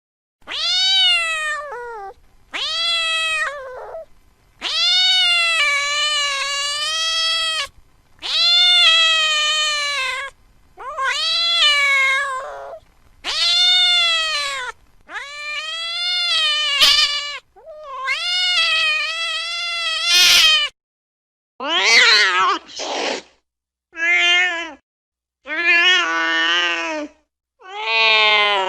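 Domestic cat meowing over and over: about a dozen long, drawn-out meows, each rising then falling in pitch. Near the end come shorter, choppier meows.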